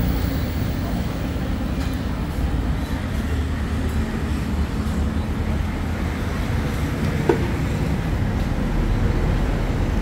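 Steady low rumble of street traffic, with a brief sharp sound about seven seconds in.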